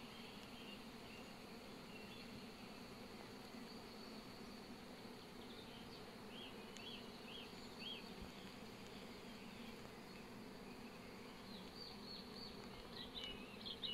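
Faint, steady hum of honeybees flying around the apiary's hives, with a few short high chirps about halfway through and again near the end.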